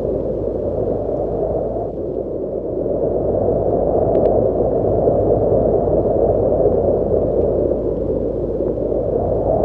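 Strong wind blowing: a steady, dull rushing with a low rumble underneath, swelling a little stronger about three seconds in.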